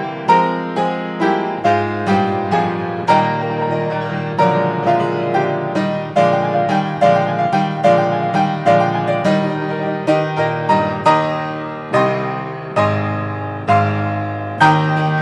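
TOYO A-25 grand piano playing a Viennese waltz solo: a steady stream of struck chords and melody notes, each attack fading, with a loud chord and held bass note near the end.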